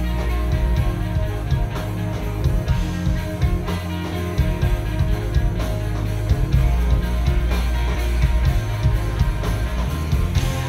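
A live rock band playing loudly without vocals: several electric guitars sustaining notes over drums. The drum hits are steady and regular.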